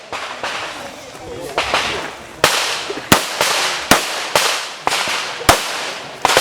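Handgun shots fired in an uneven string, about eight sharp cracks over six seconds, each trailing off in a short echo.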